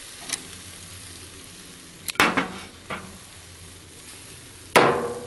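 Kabobs sizzling on the grill grates, a steady hiss of cooking meat and seafood. Metal tongs clack against the grate and skewers a few times: sharp clacks about two seconds in and a louder one near the end that rings briefly.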